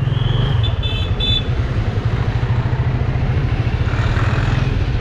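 Yamaha FZ25's single-cylinder engine running steadily at low speed, a continuous low throb.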